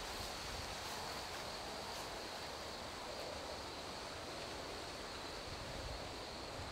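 Quiet outdoor ambience: a steady hiss with low wind rumble on the microphone and a faint steady high-pitched tone.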